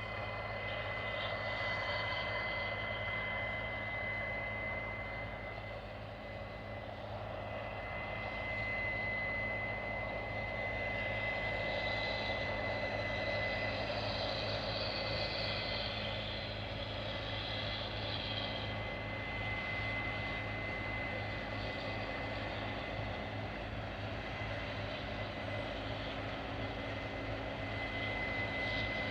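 Combine harvester running steadily under load, a constant engine drone with a thin high whine over it.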